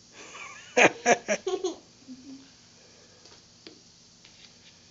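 A young girl giggling in a quick run of short bursts about a second in, followed by a few faint clicks.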